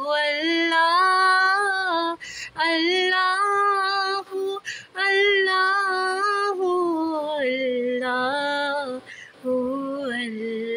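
A woman singing a slow Urdu devotional song (naat), holding long notes that glide between pitches, with a few short breaks.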